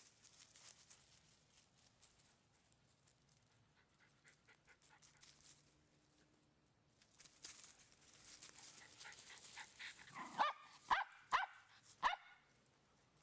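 A dog barks four times in quick succession near the end, after a stretch of faint clicks and rustling.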